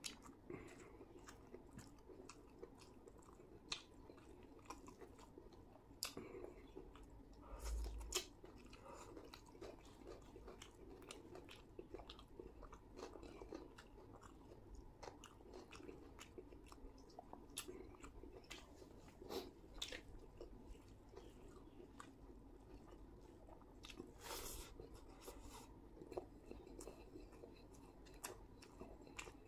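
Quiet mouth sounds of a man chewing chicken biryani, with many scattered small clicks and smacks, and a short low thump about eight seconds in.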